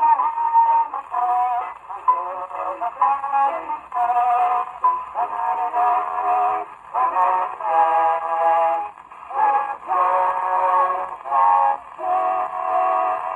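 Male vocal quartet singing on a 1906 acoustic-era disc record played back, the sound thin and narrow-band as early acoustic recordings are.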